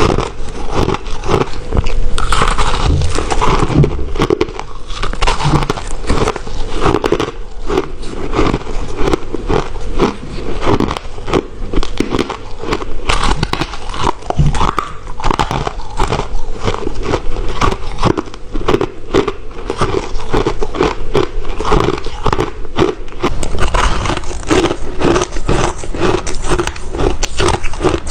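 Ice being bitten and chewed close to the microphone: a continuous run of rapid, crackling crunches.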